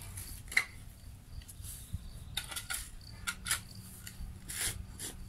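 Steel shovel blade scraping and striking against stones buried in the soil: a series of sharp scrapes and knocks, the loudest about half a second in.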